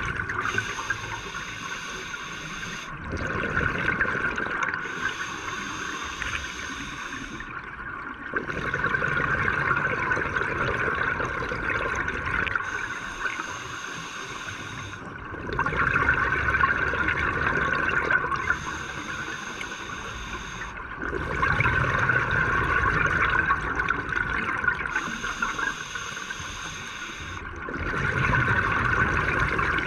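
Scuba regulator breathing underwater, heard through the camera housing: slow, regular breaths, each a hissing inhale followed by a louder rush of exhaled bubbles, about five breaths, one every six seconds or so.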